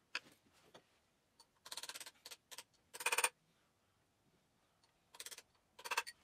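Steel key being tapped into the keyway at the rear of a garden tractor's PTO shaft: faint tapping in several quick runs of taps, the loudest run about three seconds in.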